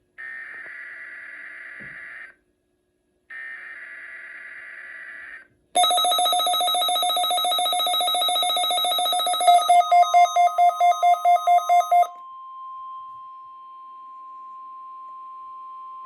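NOAA Weather Radio Required Weekly Test: two bursts of SAME digital header data tones, a harsh warbling screech, come through the radio's speaker. About six seconds in, the weather radio's own alert alarm goes off loudly, breaks into rapid beeping about four times a second, then stops. Under it the steady 1050 Hz weather radio warning tone starts and runs on more quietly almost to the end.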